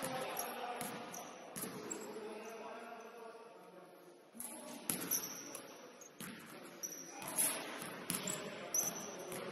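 Basketball bouncing and thudding on a gym's hardwood floor, irregular thumps echoing in a large hall, with short high sneaker squeaks and faint voices.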